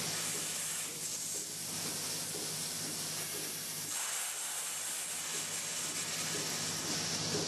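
Robotic milking machine spraying a fine jet of mist from the nozzle by its teat-cleaning brushes: a steady hiss that grows stronger about four seconds in, over a low steady machine hum.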